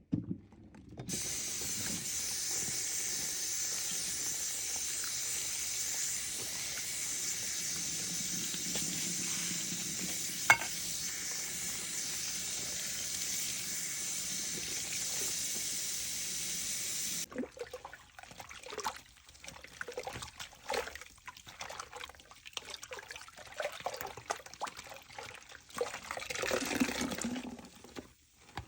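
Tap water running steadily, cutting off about two thirds of the way through; then a soaked, soapy sponge squeezed in irregular wet squelches and splashes, heaviest near the end.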